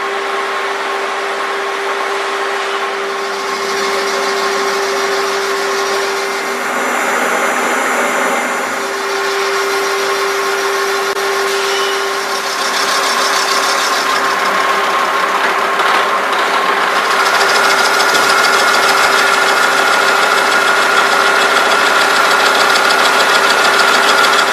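KNUTH WF 4.1 tool milling machine running, a steady mechanical hum with a constant whine. About two-thirds in, a second, higher whine sets in and the sound gets a little louder.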